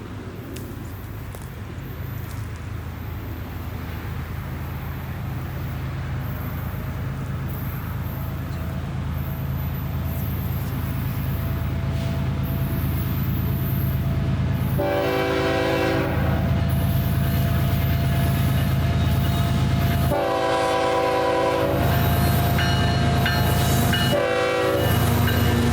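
BNSF diesel freight locomotive approaching, its engine rumble growing steadily louder. It sounds its multi-tone air horn: a long blast about 15 seconds in, another about 20 seconds in, and a short one near the end, the start of the long-long-short-long grade-crossing signal.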